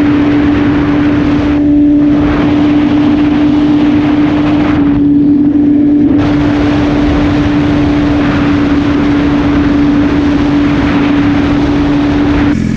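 2016 BMW S1000RR's inline-four engine, through an Austin Racing exhaust, running at a steady pitch while riding, under heavy wind rush. The wind noise thins briefly twice, about two and five seconds in.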